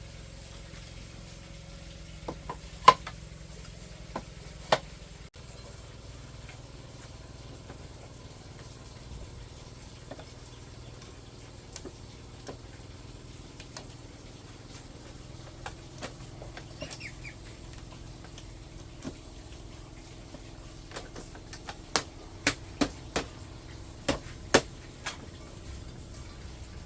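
Scattered sharp knocks and taps over a low steady hum, with a quicker run of louder knocks near the end.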